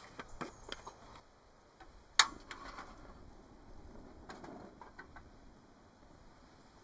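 Metal camping mug handled and set down on a portable gas stove: a few light ticks, one sharp metallic clink about two seconds in, then a few softer knocks.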